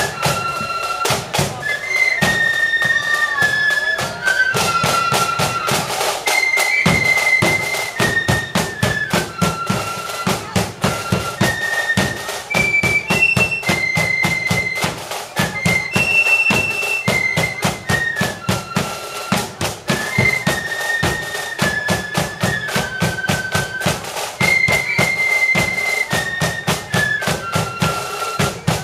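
Marching flute band playing a march tune, the high flutes carrying the melody over rapid side-drum rolls and bass drum beats.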